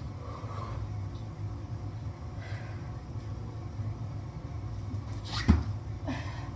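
One sharp thump about five and a half seconds in, a person landing on the floor from a jump out of kneeling into a pistol squat. Before it comes a short sharp breath, over a steady low hum.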